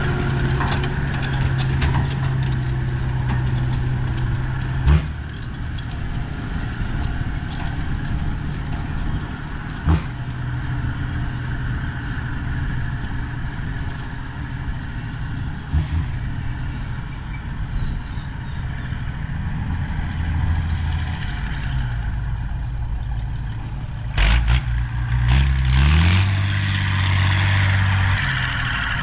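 Valmet 118 tractor's diesel engine running steadily through a straight exhaust pipe, with a few sharp knocks along the way and its pitch rising near the end as it revs up.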